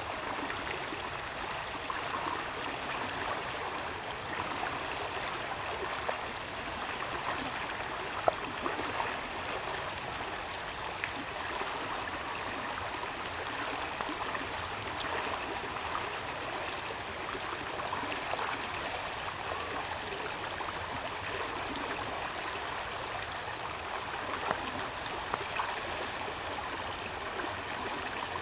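Steady rushing of flowing stream water, with a few light knocks and a faint high pulsing tone.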